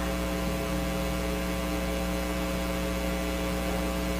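Steady electrical mains hum with several higher tones above it, unchanging throughout, and no other sound.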